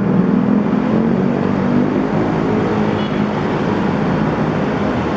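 Bus engine running steadily, with a low hum and dense road and traffic noise.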